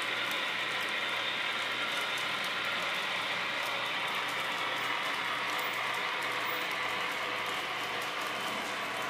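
HO-scale model trains running on the layout's track: a steady whir of small motors and metal wheels rolling on rail, with faint scattered ticks.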